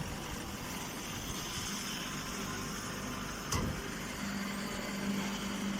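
Miniature hay baler machinery running steadily, with a hum that comes and goes and one sharp knock about three and a half seconds in.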